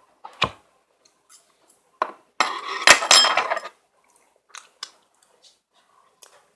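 Eating utensils clinking and scraping against a bowl of noodles: a few sharp clicks, then about two and a half seconds in a denser stretch of clattering with a slight metallic ring that lasts about a second.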